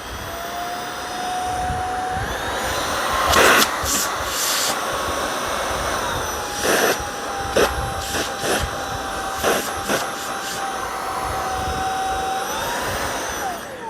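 Eureka Elivate cordless stick vacuum's brushless motor running with a steady whine and rush of air. Its pitch steps up about two seconds in, drops back around six seconds, and rises briefly near the end. A few sharp knocks and clicks sound in the middle.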